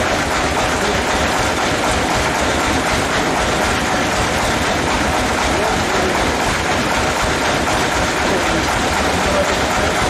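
Band sawmill machinery running steadily: a loud, even mechanical noise with no breaks. Workers' voices are faintly audible over it.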